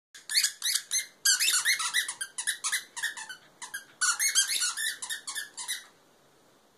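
A husky puppy chewing a squeaky toy, making it squeak in a quick series of high squeaks with two brief pauses. The squeaking stops about six seconds in.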